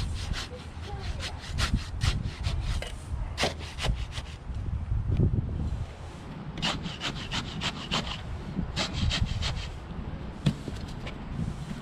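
Hand saw cutting through wood in quick strokes, pausing briefly about six seconds in and again near the end.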